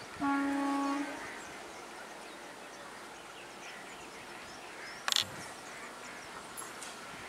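One short horn blast from an approaching MEMU electric multiple-unit train, a steady single-pitched honk lasting under a second, sounds just after the start over a steady background hiss. About five seconds in there is one sharp click.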